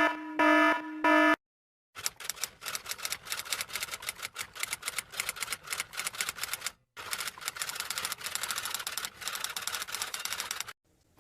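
Three short buzzy beeps, then after a brief pause a long, fast run of uneven key clicks like rapid typing, with one short break in the middle.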